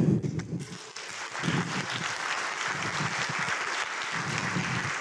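Audience applauding: the clapping builds up about a second in and keeps on steadily, easing off slightly near the end.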